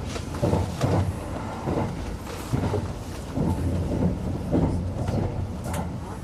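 Kintetsu 50000 series Shimakaze limited express running, heard inside the rear observation car: a continuous rumble with wheel clacks and thumps over the rail joints about every half second.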